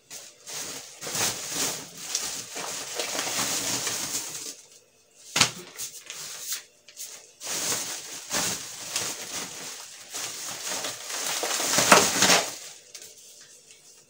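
Plastic packaging of flour packets rustling and crinkling as they are handled and stacked, in two long stretches with a sharp knock between them about five seconds in.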